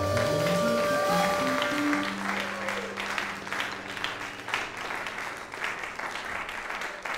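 A jazz quartet's closing chord on keyboards, tenor saxophone and electric bass is held and ends about two seconds in. A small audience then applauds.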